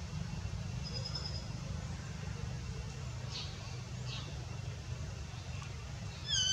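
Outdoor ambience: a steady low rumble, with a few brief high-pitched chirps and a louder squeaky call near the end.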